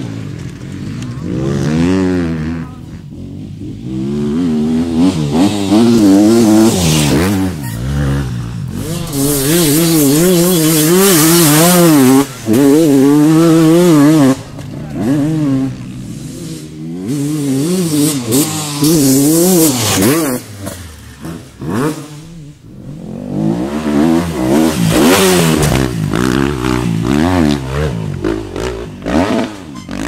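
Enduro dirt-bike engines revving hard, pitch swinging up and down quickly as the riders blip and roll the throttle over rough ground. Several bikes are heard in turn, loudest in the first half.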